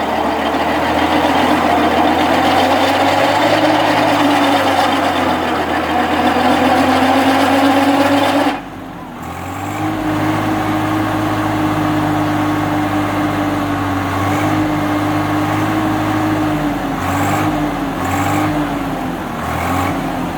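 Tractor engine running steadily under load, driving a tractor-mounted earth auger. About eight and a half seconds in the sound drops sharply, then the engine runs on with its pitch wavering slightly.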